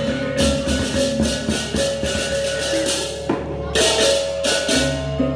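Balinese baleganjur gamelan playing: metallic clashing strokes in loud repeated bursts over drums and ringing gong tones, with a brief lull a little past halfway before the clashing returns.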